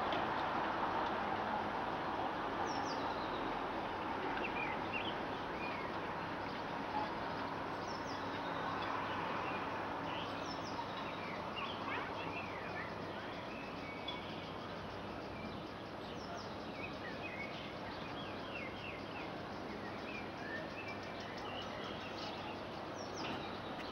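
Outdoor city ambience: a steady wash of distant traffic noise, easing off slightly, with many small birds chirping throughout in short, high calls.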